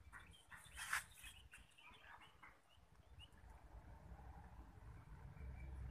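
Quiet outdoor ambience with a low rumble, a few faint, short bird calls in the first half, and a brief noise about a second in.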